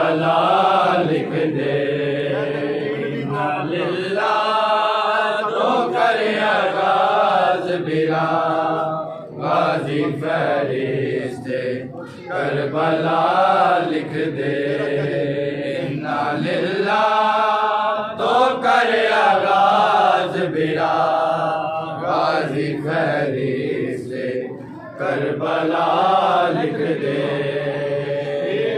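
Men chanting a Shia lament (noha) in melodic phrases a few seconds long, with short breaks between phrases.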